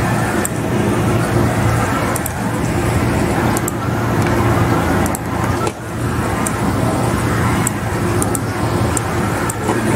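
Steady loud rushing noise with a strong low hum underneath, and faint sharp clicks scattered through it.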